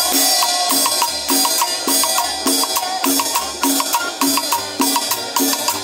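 Live cumbia band playing with a steady, quick beat of short repeated notes over a regular low pulse.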